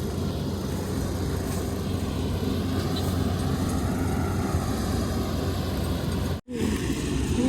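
Kubota ER470 combine harvester running steadily as it harvests through a muddy rice paddy. The sound cuts out for an instant about two-thirds of the way through, then the machine's sound resumes with some wavering pitched tones.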